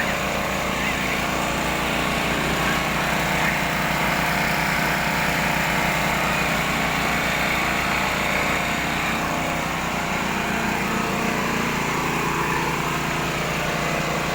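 Small 0.5 hp satellite-type pump motor running steadily during well drilling, with a steady hum and a fine, even pulse underneath.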